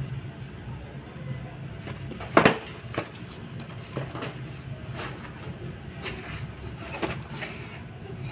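Corrugated cardboard box handled and opened by hand: a run of knocks and scrapes as the box is turned and its flaps opened, the loudest a sharp knock about two and a half seconds in. A steady low hum runs underneath.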